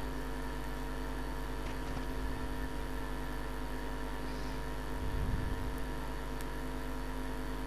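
Steady hum of heavy construction machinery engines running, an excavator and a rock-drilling rig at work, with a slight low rumble swelling about five seconds in.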